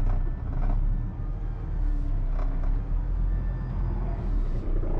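Concrete mixer truck's diesel engine running at low speed, heard from inside the cab as a steady low rumble.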